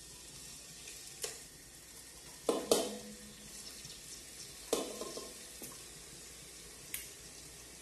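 Chicken pieces frying in hot lard in a pan: a soft, steady sizzle broken by several sharp knocks and clatters as pieces go into the pan, the loudest a little under three seconds in.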